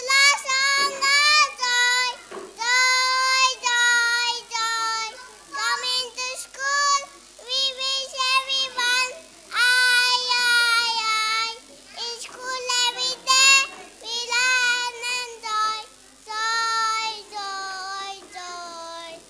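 A child singing solo: one high voice in short phrases with held notes and brief pauses between them.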